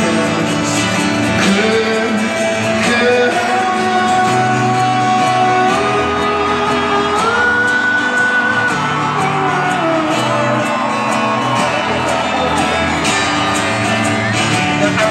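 Live acoustic guitar music in a large arena, recorded from among the crowd, with long held notes that slowly bend in pitch. Shouts from the audience are mixed in.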